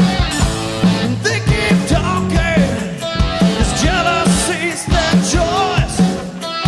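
Live rock band playing: a man singing over electric guitars and drums.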